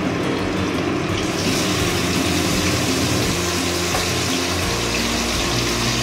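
Marinated rohu fish steaks sizzling as they are laid one after another into hot oil in a kadai; the sizzle gets louder and brighter about one and a half seconds in as more pieces go in.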